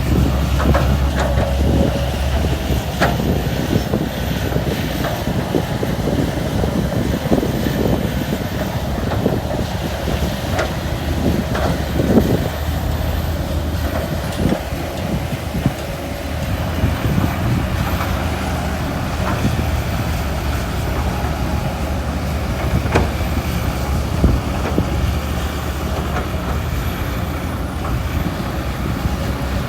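Heavy diesel machinery running steadily at an earthworks site, an excavator and dump truck at work, with a low engine drone and scattered knocks and clanks.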